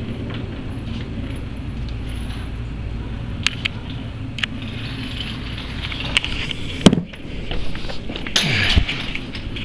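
Antonov An-12's four Ivchenko AI-20 turboprop engines droning overhead as a steady low rumble. Scattered clicks, a sharp knock about seven seconds in and a rustle near the end cut across it.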